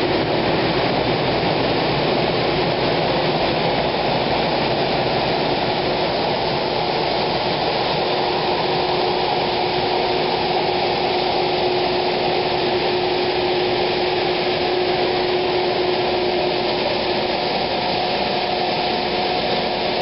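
Beam street-sweeper truck running with its rear high-pressure spray bar jetting water onto the road: a steady rush of spray over the drone of engine and pump, with a steady whine on top.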